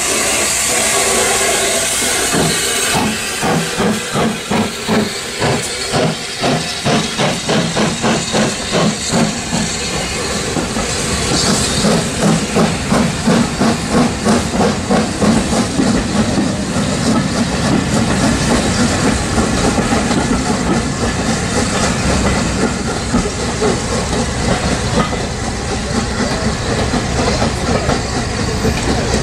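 Metropolitan Railway E class No. 1 steam tank locomotive starting away with its train: a loud hiss of steam at first, then chuffing exhaust beats, about two to three a second. After about fifteen seconds the beats blur into a steadier rumble as the coaches roll by.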